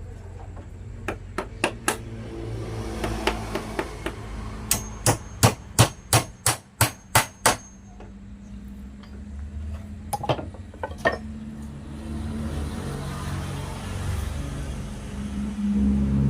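Hammer blows on wood while a wooden desk is being built: a few scattered knocks, then a quick run of about nine strikes at roughly three a second, then a few more knocks. A low rumble builds near the end.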